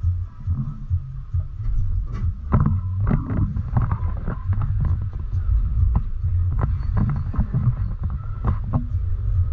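Open-sided tour bus driving along, its engine and road noise a steady low rumble, with wind buffeting the microphone and scattered rattles and knocks from the open cabin.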